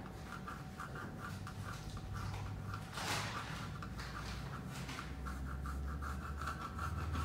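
Graphite pencil drawing on a paper-covered board, with light scratching strokes and one longer, brighter stroke about three seconds in.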